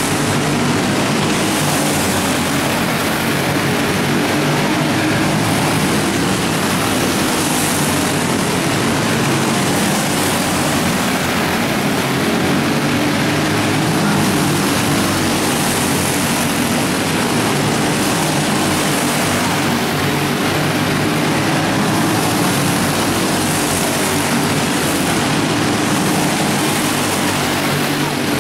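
Several racing go-kart engines running together at speed in an indoor arena, a steady, unbroken engine drone.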